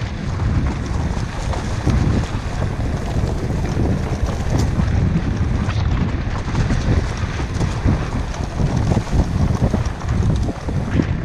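Wind buffeting the microphone: a steady low rumble that rises and falls unevenly, with scattered faint clicks.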